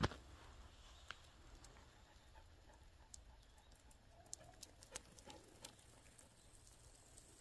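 Near silence, with faint scattered ticks and scuffs of footsteps and paws on a concrete lane.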